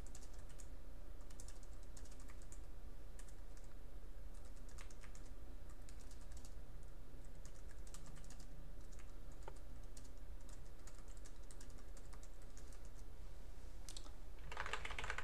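Computer keyboard keys clicking in scattered clusters of light keystrokes over a steady low electrical hum, with a denser, louder burst near the end.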